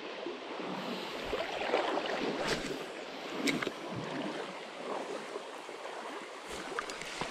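Shallow creek water running steadily over a riffle, with a few light clicks.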